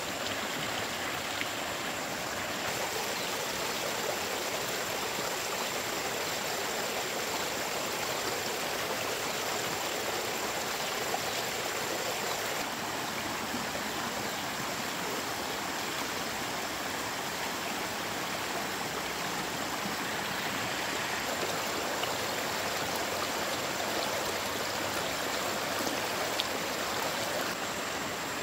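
Shallow stream water rushing steadily over and through a slatted bamboo fish trap.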